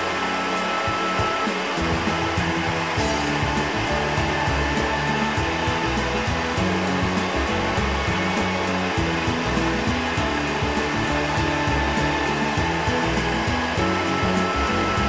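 Lopet propane glassworking burner running with its concentrated flame, a steady rushing hiss.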